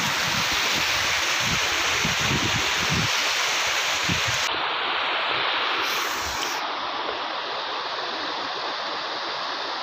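Steady rushing of water from a hillside stream running over rocks, with wind gusting on the microphone during the first three seconds.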